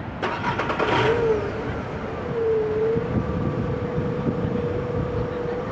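A motor engine running at a steady pitch, with slight wobbles in speed. It is preceded in the first second by a quick run of sharp clicks.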